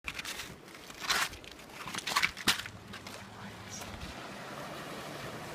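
A few sharp noises close to the microphone in the first half, then a steady wash of noise as a distant Toyota 4Runner drives into shallow river water.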